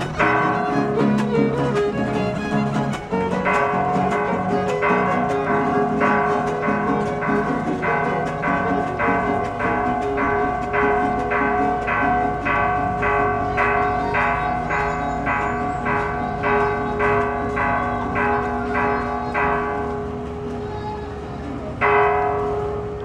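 Church bells rung in a quick, even rhythm of about two strokes a second, their tones ringing on between strokes. The strokes die away near the end, then one more stroke sounds just before it closes.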